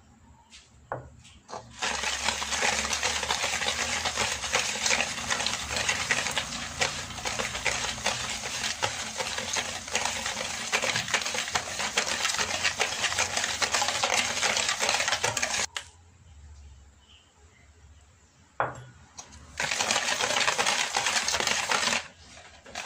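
Wire balloon whisk beating eggs into creamed margarine and sugar in a stainless steel bowl: a rapid, steady rattle of the wires scraping the metal. It stops for a few seconds past the middle, then starts again.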